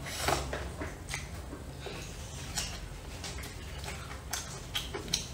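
Eating stir-fried rice noodles with chopsticks: chewing with scattered short clicks of the chopsticks against the bowl.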